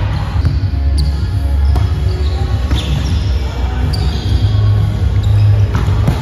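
Volleyball rally in a large gym hall: a handful of sharp slaps of hands and forearms on the ball, echoing in the hall, over a loud steady low hum.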